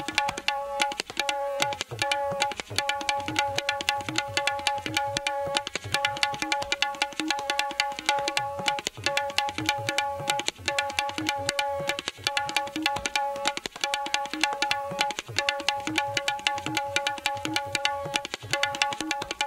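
Tabla solo: rapid, dense strokes on the treble drum (dayan) mixed with deep bass strokes on the bayan. A harmonium plays a steady repeating melodic phrase underneath as the timekeeping accompaniment.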